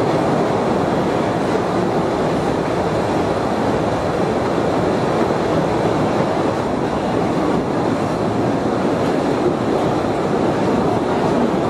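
Open-carriage cave train running steadily along its track inside the cave, heard from one of its cars: an even, unbroken noise of wheels on rail.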